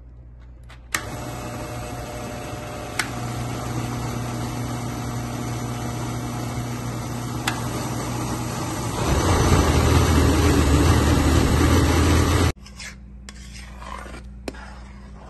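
Countertop blender running, grinding sautéed onion, tomato and spices into a fine paste. It starts with a click about a second in, runs steadily, grows louder about nine seconds in, and cuts off suddenly near the end.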